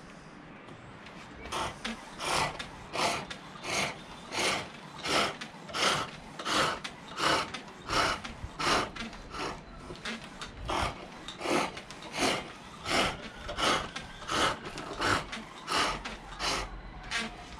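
Green silver birch being turned on a foot-powered pole lathe: a turning tool shaves the spinning spindle in evenly spaced rasping strokes, about three every two seconds, starting about a second and a half in. The work cuts only on each treadle downstroke, so each stroke is one cut.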